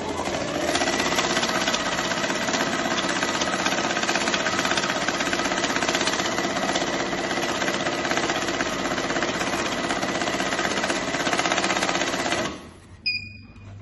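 Desktop banknote counting machine running, riffling a stack of Turkish lira notes through at about sixteen notes a second with a fast, steady whirring flutter. It stops about twelve and a half seconds in, followed by a short high beep.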